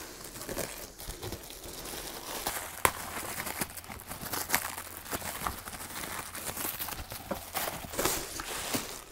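Clear plastic bag crinkling and rustling as it is handled and pulled off a fabric sewing-machine cover, with scattered sharp crackles and one sharper click about three seconds in.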